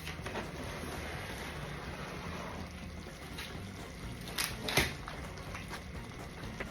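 Pork and kimchi stir-frying in a pan: a steady sizzle, with two sharp knocks a little past halfway.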